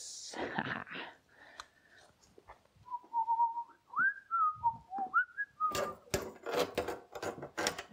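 A person whistling a short tune, a few notes that slide up and down, followed near the end by a run of quick clattering knocks.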